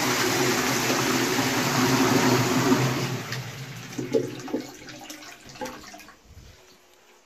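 Toilet flush from a high-level Shires Rubberwell cistern into a Twyford Classic pan. A loud rush of water carries on for about three seconds, then fades away over the next three, with a few faint knocks as it dies down.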